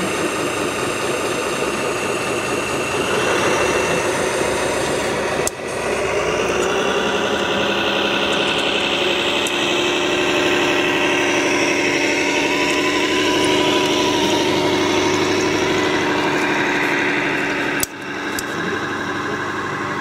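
Radio-controlled scale construction models running: a steady engine sound that rises and falls in pitch. It breaks off abruptly twice, about five and a half and eighteen seconds in.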